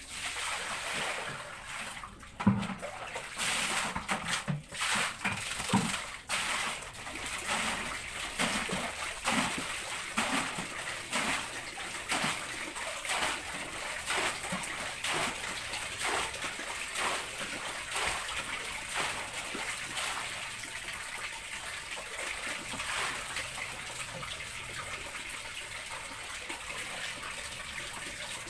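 Water poured from a dipper splashing over small wet dogs and onto a tiled floor, with repeated splashes and trickling throughout and a few louder splashes in the first few seconds.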